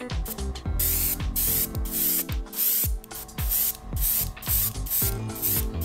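Airbrush spraying paint in short hissing bursts as the trigger is worked on and off, over background music with a steady beat.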